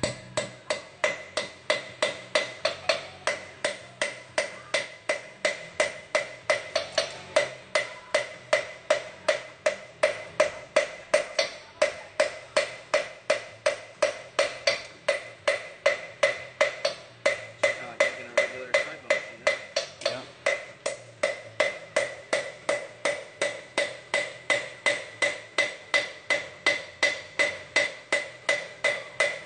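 Steady, rhythmic hammer blows on a red-hot steel horseshoe held on an anvil, about two and a half strikes a second, each ringing the anvil. The shoe is being forged into a side bone shoe.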